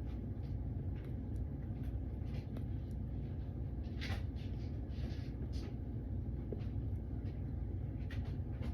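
Steady low background hum with a few soft puffs and mouth smacks from a smoker drawing on a tobacco pipe, the clearest about four seconds in and again a second later.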